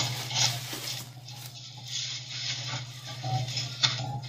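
Light clicks and rustles of small plastic toy-house pieces being handled and set down, over a steady low hum.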